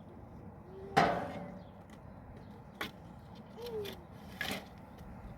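A few sharp knocks or bangs: a loud one about a second in with a short ringing tail, then two fainter ones, with two brief high squeaky sliding sounds between them.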